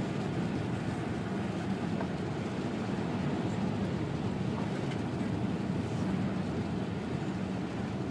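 Steady road and engine noise of a car driving on a highway, heard from inside the cabin.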